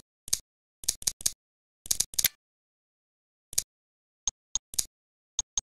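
Mac OS 9 interface sound effects: a string of short, crisp clicks, some in quick pairs and triples, as pull-down menus are opened and the pointer moves across them. There is dead silence between the clicks.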